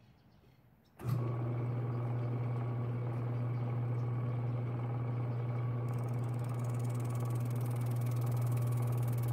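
A shop-built drum sander with a 32-inch belt-driven drum switched on about a second in and running steadily with a strong low hum. A higher hiss joins about six seconds in as a plywood workpiece is handled on its table.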